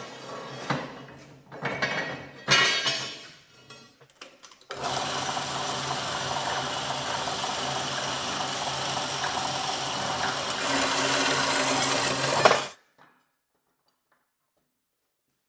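Power tool working metal: a few short, uneven bursts, then running steadily for about eight seconds before cutting off suddenly.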